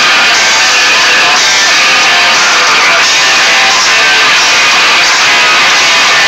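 Music with guitar, loud and continuous.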